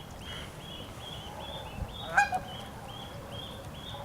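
A goose honks once, loudly, about two seconds in, over a steady run of high, repeated peeps from goslings, two or three a second.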